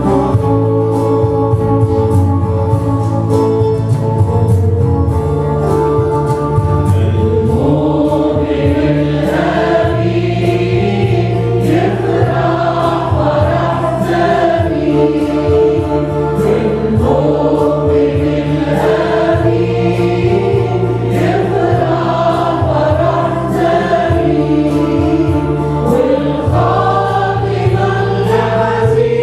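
A group of worship singers, led by women's voices, sings a hymn over electric keyboard accompaniment with held bass notes. A short keyboard passage opens the stretch, and the voices come in about seven seconds in.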